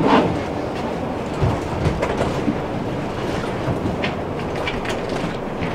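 Tram running along its track, heard from inside the car: a steady rumble with scattered, irregularly spaced clicks and knocks.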